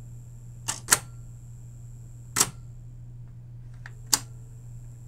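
Pioneer CT-F900 cassette deck's transport mechanism clicking as it is forced into autoplay: four sharp mechanical clicks, a quick pair about a second in, then single clicks about a second and a half apart. A low steady hum runs underneath.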